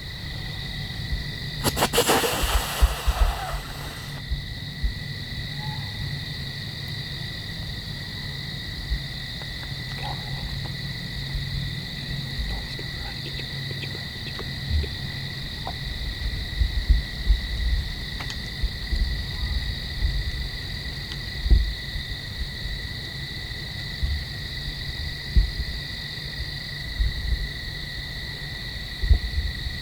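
Steady evening chorus of crickets, an even high-pitched trilling. About two seconds in comes a loud hissing rush of noise lasting about two seconds, and scattered low thumps follow later.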